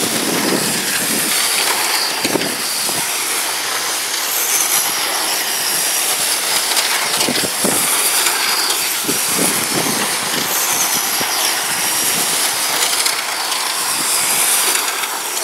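Electric radio-control oval trucks with 17.5-turn brushless motors racing laps: a high motor whine rising and falling as they pass, over a steady hiss of tyres on pavement.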